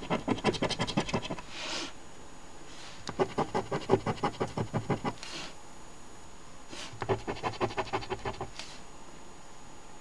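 A coin scratching the coating off a paper scratch-off lottery ticket, in three bouts of quick back-and-forth strokes, the middle one the longest.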